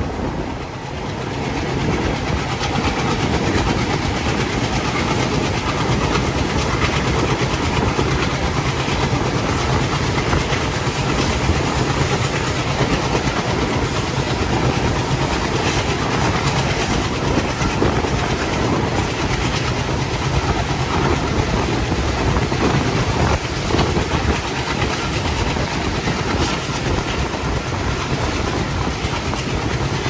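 WDG3A ALCo diesel locomotive's 16-cylinder engine running steadily under load as the train travels, over the clickety-clack of coach wheels on the rails, heard from a coach riding behind the locomotive.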